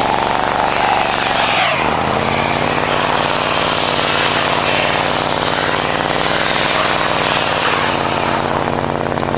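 Pickup truck engine held at high revs with its wheels spinning while the stuck Dodge pickup is towed out on a rope. The engine note drops sharply and climbs back about two seconds in, then holds steady.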